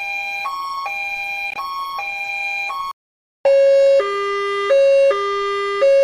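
Two edited versions of a two-tone ambulance siren. The first alternates between a higher and a lower note, each held about half a second, and cuts off about three seconds in. After a short gap, a louder, lower-pitched version alternates at about the same pace.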